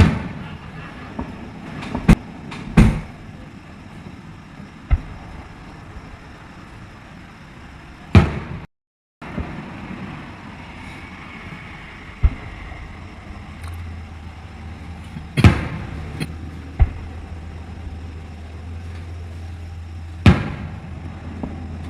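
Fireworks exploding: a series of sharp booms every few seconds, the loudest about 8 and 15 seconds in. A steady low hum comes in about halfway.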